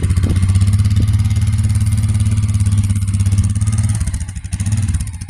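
Engine idling steadily with an even low throb, easing off briefly about four seconds in.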